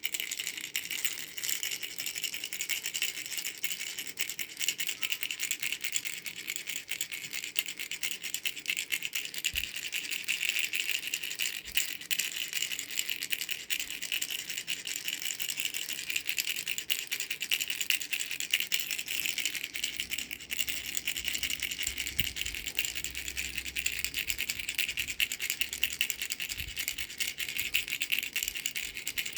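Baby rattle shaken without a break: a dense, high-pitched rattling of many rapid little ticks.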